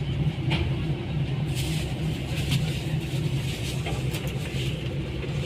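Tour bus driving on the road: a steady low engine drone with road noise and a few light clicks and rattles.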